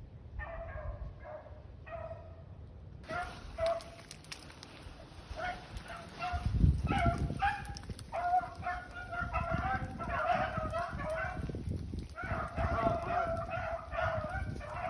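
A pack of rabbit hounds baying as they run a rabbit: a few short bawls at first, then from about three seconds in many voices overlapping in repeated barks that thicken into a steady chorus. A low rumble on the microphone about six and a half seconds in.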